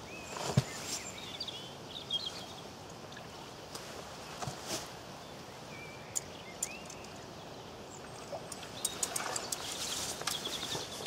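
Small birds chirping in short rising and falling notes over a steady outdoor hiss, with scattered sharp clicks and knocks. Several of these come in quick succession near the end.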